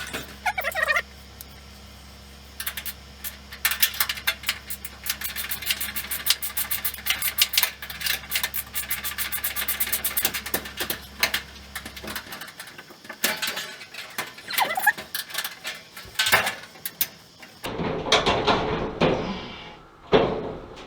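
An 8 mm socket wrench clicking and metal clinking and rattling as bolts are taken out of the dryer's sheet-metal cabinet, with louder handling clatter near the end. A steady low hum cuts out about twelve seconds in.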